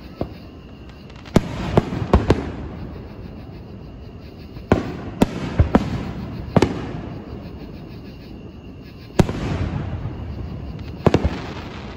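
Aerial fireworks shells bursting overhead: sharp bangs in clusters, four in quick succession a little over a second in, four more around five to six seconds in, a single one just after nine seconds, and two close together near the end, each trailing off into a rolling rumble of echo.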